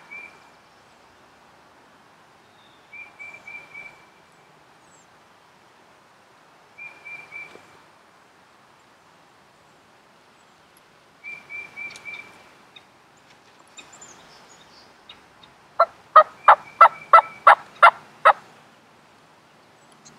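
Wild turkeys calling: short, fairly faint bursts of three or four quick notes about every four seconds, then near the end a loud run of about ten sharp notes, roughly four a second.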